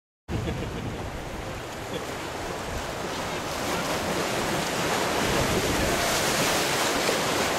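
Rushing, churning water of a river rapids raft ride, with wind buffeting the microphone as the raft moves; the noise swells louder about halfway through.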